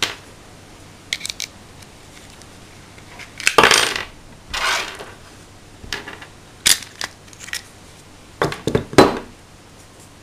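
Allen keys and small metal parts clinking and clattering on a wooden tabletop as a Hi-Capa airsoft pistol is taken apart for maintenance. A string of light clicks with a few louder clatters, the loudest a little past halfway and near the end.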